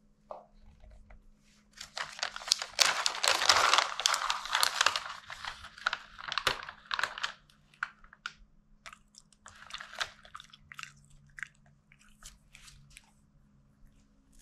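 Shih Tzu chewing a crunchy dog treat: quick crunching bites, densest and loudest in the first half, then slower, scattered crunches.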